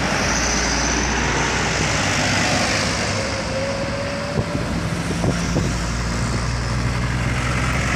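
Road traffic passing: heavy truck engines running with tyre and road noise. A couple of light knocks come about halfway through.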